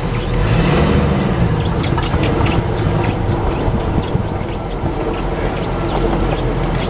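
Lifted Chevy truck's engine running as it is driven slowly across a grassy field, its pitch rising a little about a second in, with many sharp clicks and rattles on top.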